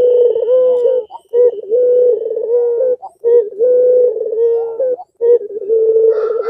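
Caged puter pelung, a Barbary dove kept for its long coo, cooing close up: long, steady coos of about a second and a half each, one after another with short breaks between them.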